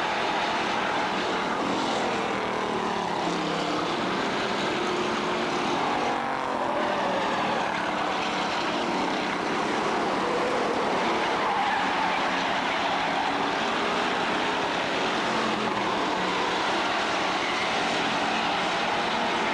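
Street stock race car engines running at racing speed on the track, a continuous engine drone whose pitch rises and falls as the cars pass.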